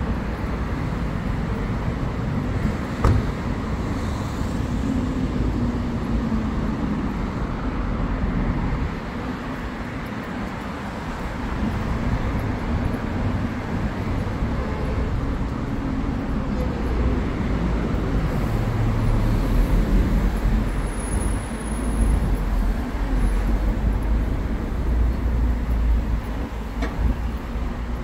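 Street traffic in a city: a steady mixed noise of passing cars with a low rumble, growing heavier in the second half, and a single sharp click a few seconds in.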